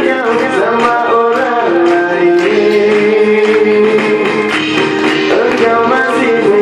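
A man singing into a microphone over a Korg Triton keyboard accompaniment with a backing beat, amplified live through a PA.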